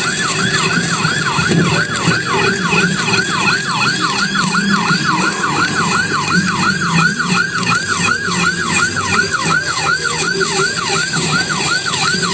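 Emergency vehicle siren in a fast yelp, sweeping up and down in pitch about three times a second, stopping near the end.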